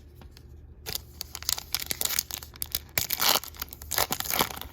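A trading-card pack wrapper being torn open and crinkled: dense crackling with sharp clicks starting about a second in.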